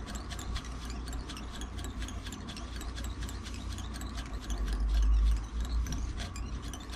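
Quick, light ticking of thread being wound off a bobbin around the hair on a bucktail jig head, over a low rumble that swells a little past the middle.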